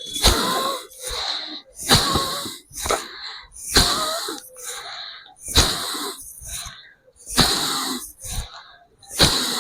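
Bhastrika pranayama (bellows breath): forceful breaths in and out at a steady rhythm. There are six rounds, about two seconds apart, each a loud, sharp rush of breath followed by a softer one.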